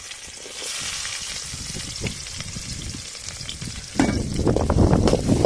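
Chopped onions frying in hot oil in a pan, sizzling, with light clicks of stirring. About four seconds in, a much louder, low rumbling noise starts suddenly.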